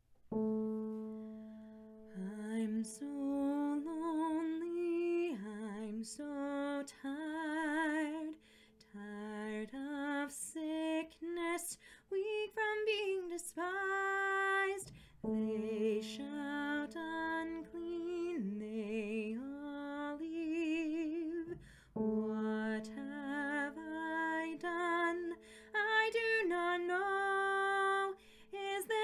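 A woman singing a slow musical-theatre ballad with vibrato, over a piano accompaniment of long held chords. The piano chord sounds first and the voice comes in about a second and a half later.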